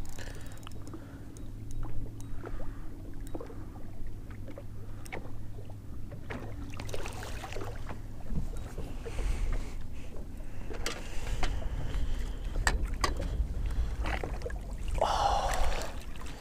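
Sounds aboard a fishing boat while a hooked fish is played in: a steady low hum through the first half, then low rumbling wind noise, with many scattered clicks and knocks and a short louder rush near the end.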